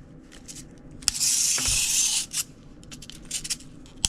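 Hard plastic scraping and rubbing as a small wind-up toy is forced by hand. Light clicks, then a harsh scrape about a second in lasting about a second, with a dull knock in the middle.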